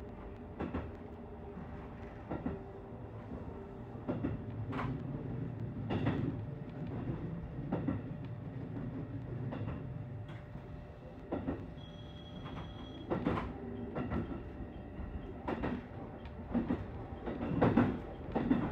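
Train running along the track, heard from inside the cab: a steady rumble with the wheels knocking over rail joints every second or two.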